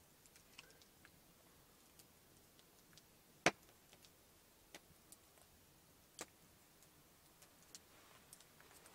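Meltwater drops falling from a leaking log roof: scattered sharp ticks of drops landing, the loudest about three and a half seconds in and another just after six seconds, over a quiet room. The leak comes from the fire's heat melting snow on the roof.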